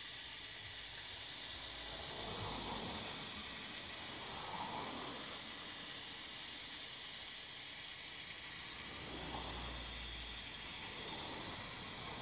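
Small vacuum cleaner running with a steady hiss, sucking old brake fluid, black with sludge, out of a motorcycle's brake master cylinder reservoir.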